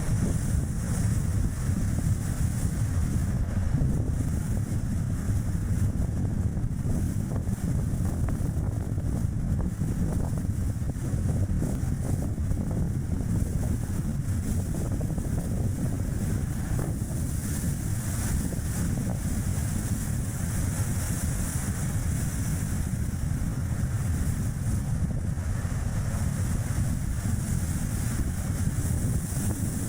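Steady low rumble of strong wind buffeting the action camera's microphone, mixed with road noise from a Chevrolet Spark driving.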